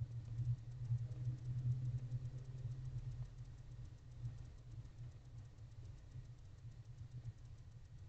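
A low, steady rumble, louder in the first three seconds and then easing off.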